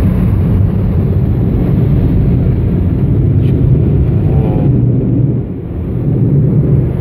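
Car wash machinery running over the car, heard from inside the cabin: a loud, steady, deep rumble of water and equipment against the body, easing a little about five seconds in.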